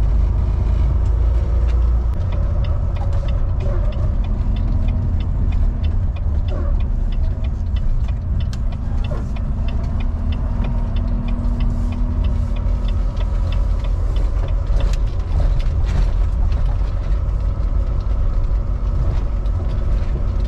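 Volvo VNL semi-truck's diesel engine running at low speed, a steady low rumble heard inside the cab. A light, rapid ticking runs through roughly the first half.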